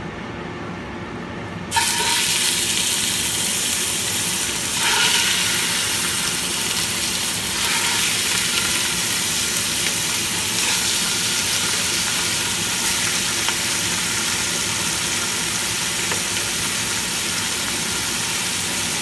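A range hood fan runs with a steady hum, then about two seconds in chicken thighs go into hot oil in a stock pot and sizzle loudly. The sizzle swells again a couple of times as more pieces are added.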